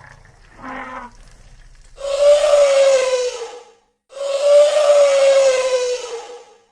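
Elephant trumpeting: a short call about a second in, then two long, loud trumpets of about two seconds each, each holding a steady pitch.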